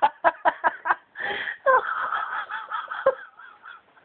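A person laughing hard: quick rhythmic bursts of laughter, a sharp gasp for breath about a second in, then longer strained laughing sounds that die away after about three seconds.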